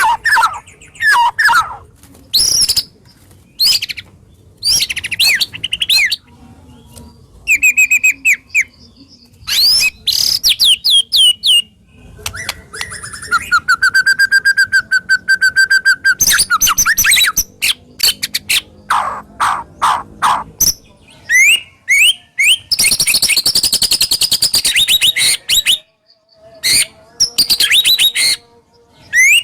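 White-rumped shama singing a loud, varied song of harsh, sharp whistled phrases separated by short pauses, with a long even rattle around the middle and a fast buzzing trill near the end.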